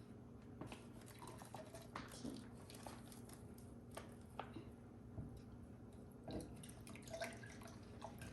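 Faint, scattered wet clicks and drips as a casting mix is poured and stirred with water.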